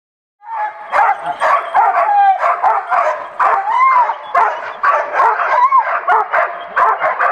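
A black shepherd-type search dog yelping, whining and barking in quick rising-and-falling cries, starting about half a second in. The dog is worked up and eager to go as its handler motivates it before a search exercise.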